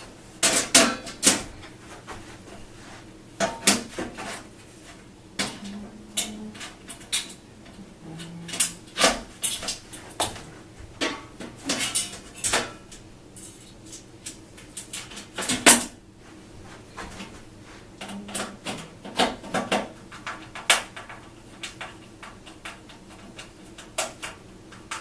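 Irregular metallic clinks and knocks of Corten steel planter panels and a Phillips screwdriver as a screw joining the panels is started and driven in by hand. The loudest knock comes about two thirds of the way through.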